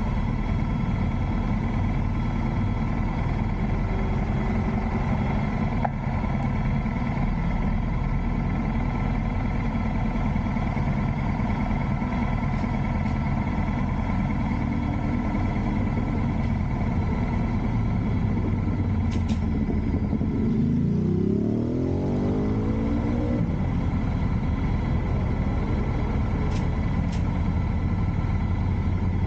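Motorcycle engine idling steadily, with road traffic going by. About twenty seconds in, a passing vehicle's engine note rises for a few seconds.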